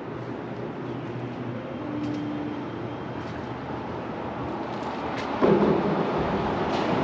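Steady low rumble of city traffic and construction-site machinery. It gets suddenly louder about five and a half seconds in and stays loud.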